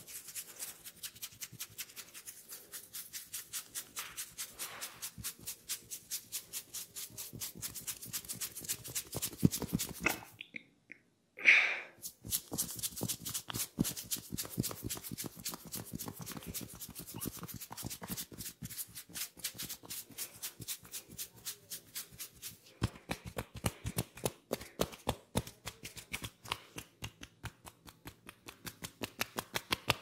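Fingers rubbing and kneading through oiled hair on the scalp in quick, rhythmic, crackly strokes. A loud, sharp snap about eleven seconds in, after a moment of quiet.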